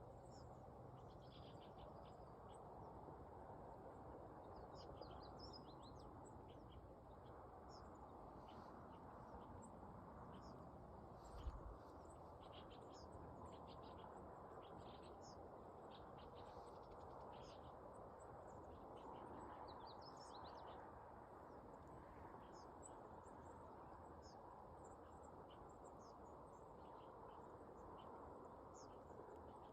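Faint birdsong: many short chirps and twitters from small birds, scattered throughout over a steady low background hiss, with a single low bump about eleven seconds in.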